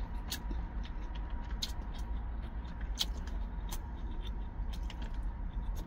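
Truck engine idling as a steady low rumble heard inside the cab, with scattered light clicks from eating at a plastic lunch tray with wooden chopsticks.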